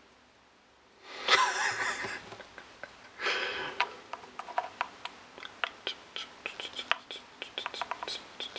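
Two loud breathy sniffs or exhalations from the person, about a second in and about three seconds in, followed by a run of small, sharp plastic clicks and taps as a clip-on fisheye lens is fitted over an iPhone's camera.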